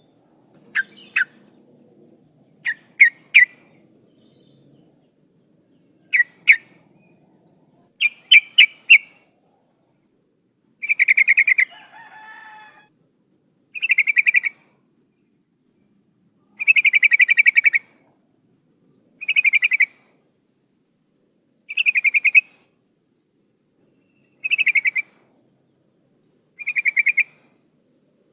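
Female yellow-vented bulbul (trucukan) calling, a bird in breeding condition calling for males: a few sharp, short notes in the first nine seconds, then a rapid chattering call of about a second, repeated every two to three seconds.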